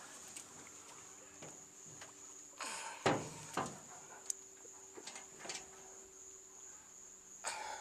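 A few scattered knocks and bumps from handling gear and fish in an aluminium boat, the loudest about three seconds in, over a steady high-pitched whine.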